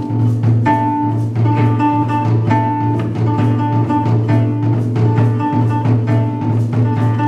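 Live ensemble of koto, keyboard and taiko drums playing: plucked koto and repeated pitched notes over a steady held low note, with drum strikes keeping a regular beat.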